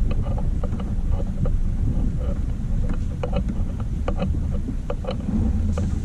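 Subaru Outback driving through ice, its tyres breaking and crunching the ice in a scatter of sharp cracks over a steady low rumble from the vehicle.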